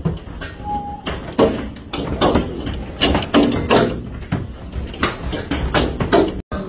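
A series of irregular loud knocks and bangs, roughly one every half second to second, with a short break near the end.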